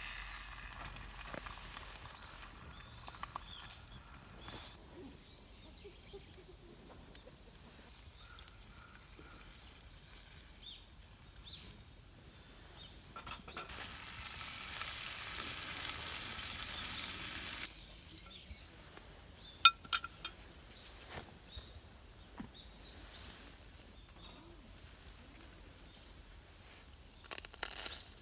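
Food sizzling in a pan over a small wood-fire stand, with scattered sharp pops. Midway the sizzle grows louder for about four seconds.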